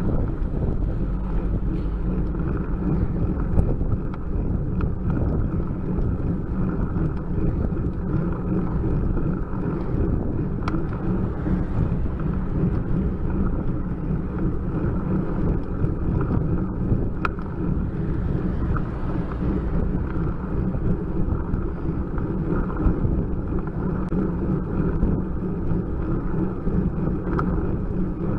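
Steady low rumble of wind buffeting the microphone of a bike-mounted camera on a slowly climbing road bike, with road noise and a few faint clicks.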